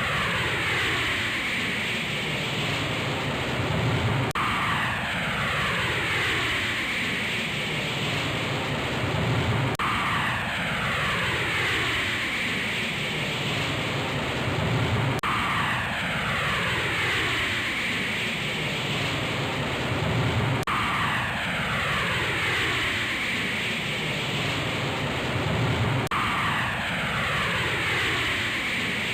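Aircraft engine noise with a whine that falls in pitch, the same few-second stretch repeating about every five and a half seconds as a loop.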